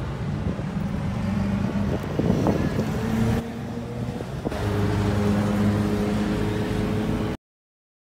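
Steady low mechanical drone with a hum running through it. It drops in level for about a second, a little past three seconds in, and then cuts off abruptly near the end.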